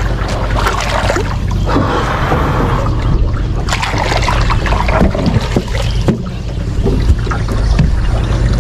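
Water splashing and trickling around a boat hull as the boat is worked into the water, with scattered knocks and a steady low rumble.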